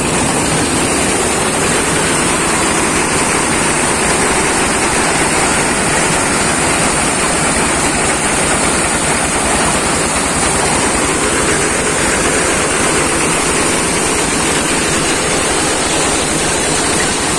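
Motorized paddy thresher running steadily under load, a loud, even mechanical noise as rice stalks are fed into its threshing drum.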